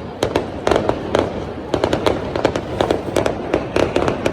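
Fireworks and firecrackers going off in a rapid, irregular string of sharp cracks, several a second, over a continuous hiss.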